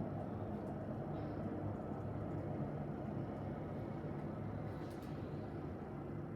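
Steady low rumble of street traffic, with a faint high squeak about a second in.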